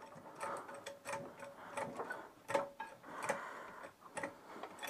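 Hydraulic trolley jack being worked under a car: irregular sharp clicks and knocks, about two to three a second.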